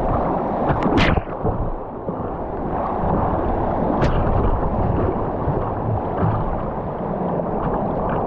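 Whitewater rapids rushing around a kayak's bow, a steady wash of churning water with water slapping the plastic hull; a sharp splash about a second in and another about four seconds in.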